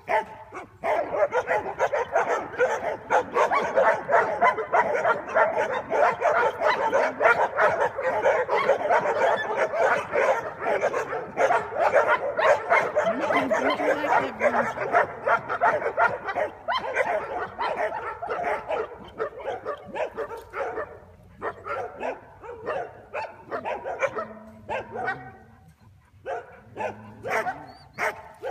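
Dogs barking and yipping in a dense, continuous chorus that thins to scattered barks after about twenty seconds.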